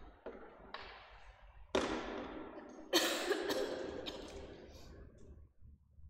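A series of sudden knocks and thuds, about six in four seconds, the loudest about three seconds in, each ringing out in a large church's long echo.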